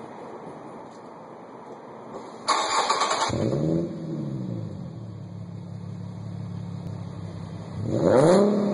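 Infiniti G37's 3.7-litre V6 with a Stillen cat-back exhaust starting up. About two and a half seconds in it cranks for under a second, catches with a rev flare that falls back to a steady idle, and near the end gets one short throttle blip that rises and falls in pitch.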